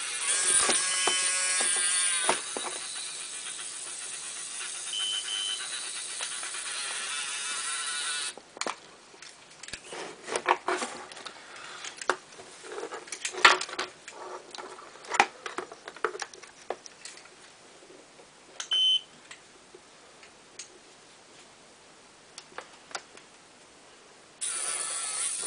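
Siku Control 32 toy-tractor drive motor and its plastic gearbox running under load against a scale, whining at first and then running steadily until it stops abruptly about eight seconds in. Scattered clicks and knocks follow as the wheel and rig are handled, and the motor starts running again near the end.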